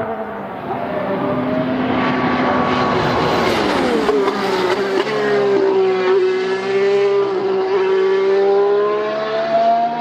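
A 2019 Formula 1 car's 1.6-litre turbo V6 hybrid engine running loud through a corner. Its note drops in pitch about four seconds in as the car slows for the bend, holds a fairly steady note through the turn, and rises again near the end as it accelerates out.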